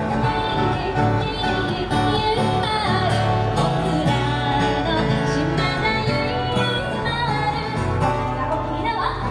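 Live Okinawan shima-uta folk music: singing over plucked strings.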